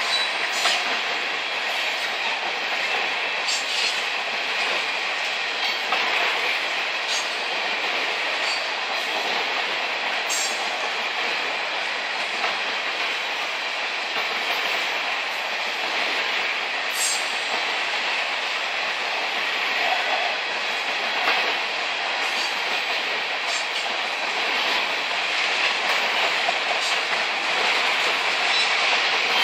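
Covered hopper cars of a freight grain train rolling past: a steady noise of steel wheels on rail, with scattered clicks and clacks as the wheels cross rail joints.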